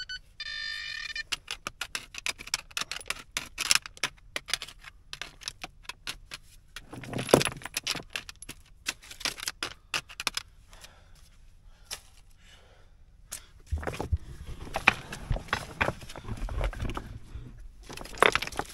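Loose limestone stones and chips clinking and clattering against each other as they are scraped and pulled out of a rocky hole by gloved hands, in many short sharp knocks with a denser stretch of scraping and rummaging near the end. A short electronic beep sounds about half a second in.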